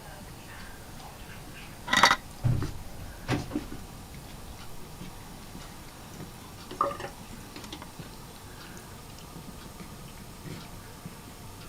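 Cat drinking water, with faint soft ticks from its lapping. A sharp click about two seconds in, then a few duller knocks, the last near the seven-second mark.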